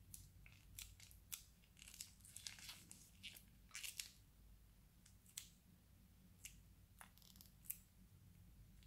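Plastic piping bag crinkling and crackling as a hand squeezes slime out of it: faint scattered crackles with a few sharp clicks.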